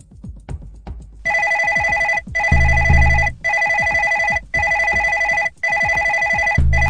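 Electronic telephone ringer ringing with a steady multi-pitched tone, in about one-second rings separated by short breaks, starting about a second in. Underneath runs a music track with deep bass hits and quick ticking percussion.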